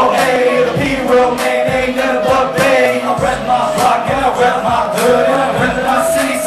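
Live hip-hop performance: a rapper rapping into a microphone over a loud beat with a heavy bass kick, played through a club PA.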